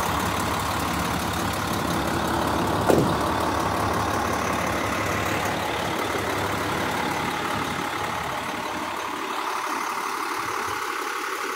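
International 4300's DT466 inline-six diesel idling steadily, with a single sharp thud about three seconds in. The engine sound eases off a little near the end.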